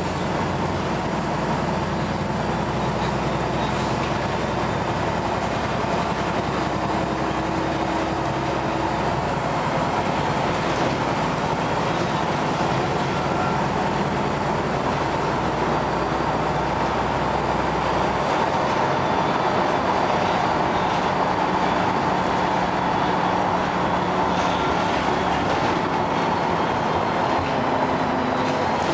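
Interior noise of a LiAZ 6213.22 articulated city bus while driving: a steady hum of engine and road noise that does not let up.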